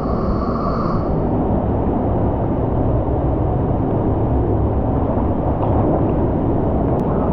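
Waterfall in a narrow rock gorge: a steady, loud rush of falling water.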